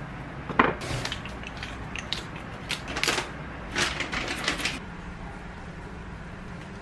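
Hand-twisted black pepper grinder being turned over food: a run of short crunchy clicks and rasps, loudest near the start, which stop about five seconds in.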